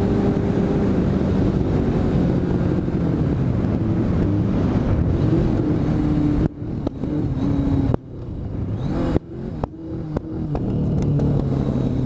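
Motorcycle engine running steadily, then about six and a half seconds in it falters, cutting out and catching again several times with sharp pops before running on. This is the popping of a failing engine, which the rider fears has blown something.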